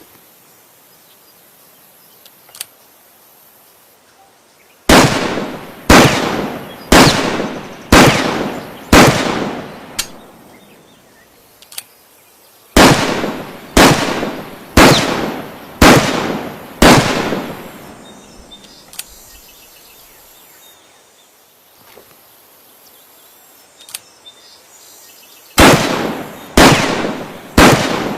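Winchester Model 70 Featherweight Compact rifle firing in strings of evenly spaced shots, about one a second: two strings of five, then three more near the end. Each shot is a sharp report with a long echoing tail. A single faint click comes before each of the first two strings.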